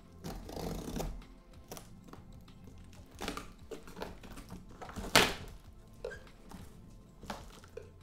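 A large cardboard shipping box being opened: packing tape scraping and tearing and the cardboard flaps knocking, with one sharp crack about five seconds in, over soft background music.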